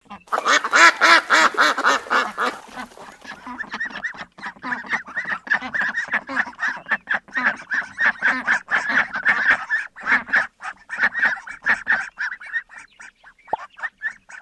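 Ducks quacking in a long, fast run of quacks, several a second, loudest in the first few seconds and thinning out near the end.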